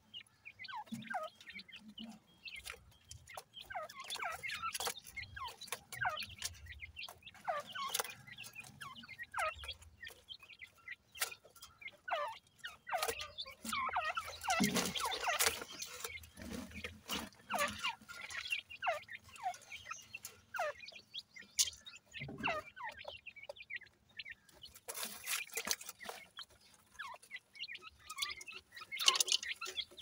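Partridge chicks peeping: many short calls sliding downward in pitch, in an irregular stream, over light clicks and scratching in gravel. Near the end there is louder rustling of the gravel.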